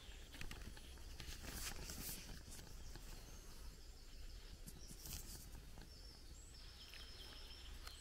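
Quiet countryside ambience: soft footsteps on a dirt path with a few faint bird calls, the clearest about five to seven seconds in, over a low steady rumble.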